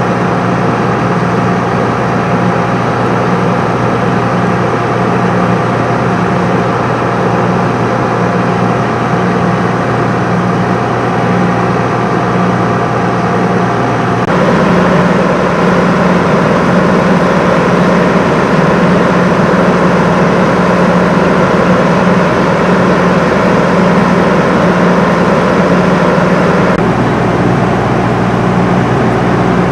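Fire engine's diesel engine idling steadily, a heavy throbbing hum. The sound shifts abruptly about halfway through and again near the end.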